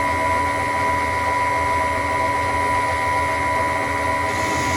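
Myford Super 7 metal lathe running steadily with no cut being taken, a constant mechanical hum with a high whine.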